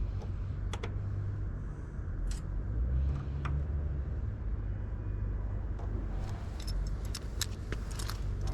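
Small sharp metallic clicks and clinks over a steady low rumble, the clicks coming thick and fast in the last two seconds.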